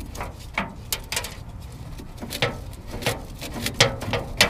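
Hand ratchet clicking in short back-and-forth strokes, a sharp click every half second or so, as small 7 mm bolts are backed out of the plastic fuel-filler housing.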